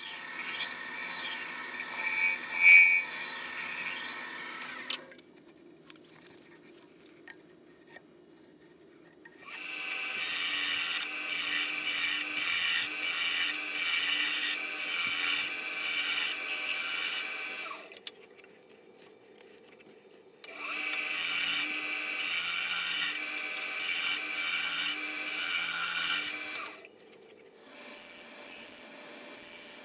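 Bowl gouge cutting the inside of a dry maple bowl blank on a wood lathe: a hissing, scraping shaving noise in three long passes. Between the passes only the lathe's faint running hum is left.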